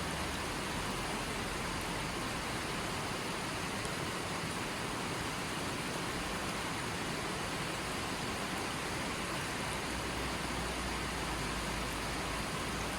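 A small stream's water running over stones, a steady rushing with no change in level. A faint low rumble rises under it near the end.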